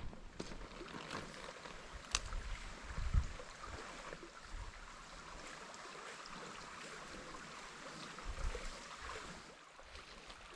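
Small trout creek running steadily, with a sharp click about two seconds in and a couple of brief low thumps.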